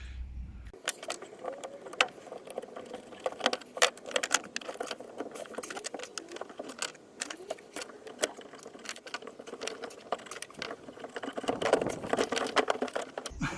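Irregular small clicks, knocks and rattles of parts being handled as the fuel pump is worked loose from a Nissan Micra's plastic fuel tank.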